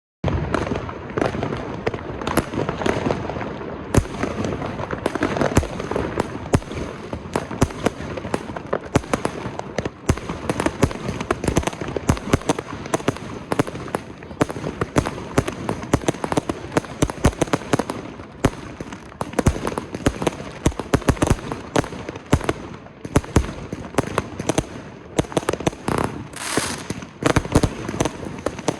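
Alpha Fireworks 'Adrenaline' firework going off: a dense, continuous stream of rapid bangs and cracks, with patches of hissing crackle near the end.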